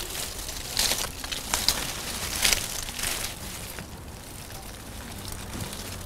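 Leaves and twigs of a dense, glossy-leaved shrub rustling and crackling as a hand pushes in among the branches, in several short bursts over the first few seconds, then quieter.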